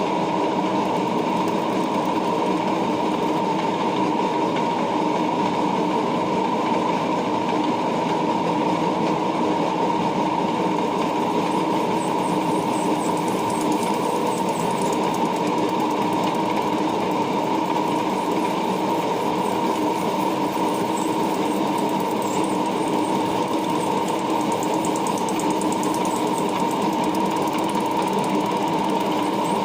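Lathe running steadily with a constant motor hum while turning a nylon gate wheel; faint high scratchy sounds come and go in the second half.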